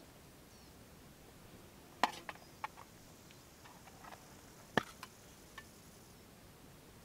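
A handful of short, sharp clicks and taps from something being handled by hand, the two loudest about two seconds in and just before five seconds, with a few lighter ticks between and after.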